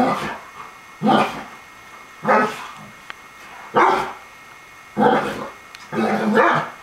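A dog barking in single play barks, about six of them a little over a second apart.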